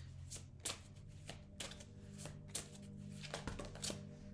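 A deck of oracle reading cards being shuffled by hand: a quick, uneven run of soft card slaps and riffles, about three a second. Faint background music with steady held notes plays underneath.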